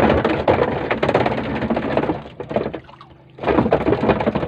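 Water splashing and sloshing in two loud bursts, the second starting about three and a half seconds in.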